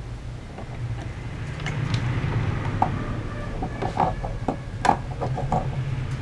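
Tools being put down and picked up on a workbench: a soldering iron and roll of solder set aside and fret-pulling pliers taken up, heard as a cluster of light clicks and knocks in the second half, over a steady low hum.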